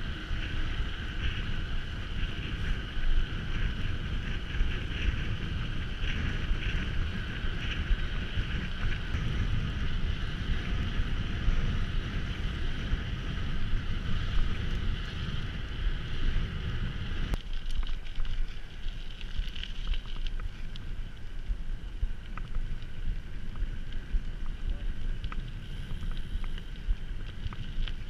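Wind buffeting the microphone on a moving mountain bike, with a steady higher whir of the ride over it that cuts off suddenly about two-thirds of the way through.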